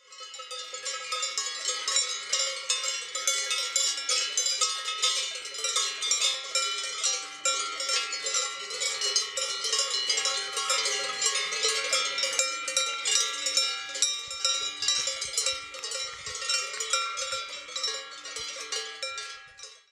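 Many cowbells of different pitches clanging irregularly and overlapping, fading in at the start and cutting off suddenly just before the end.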